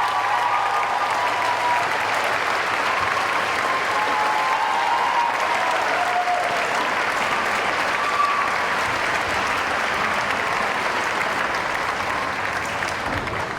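Audience applauding steadily, with a few voices calling out faintly over it in the first half, dying down near the end.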